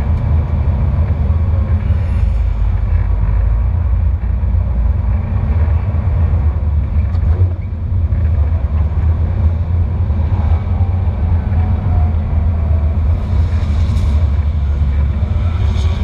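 Drift car's engine running at low revs as the car rolls slowly, heard from a camera mounted on the car itself, so the sound is a muffled, heavy low drone.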